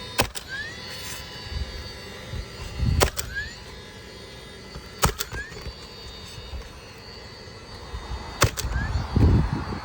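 Roofing nails being driven into a replacement asphalt shingle: four sharp single shots a few seconds apart, each followed by a short rising chirp, typical of a nail gun firing. Dull thuds of handling on the roof deck come between them, the heaviest near the end.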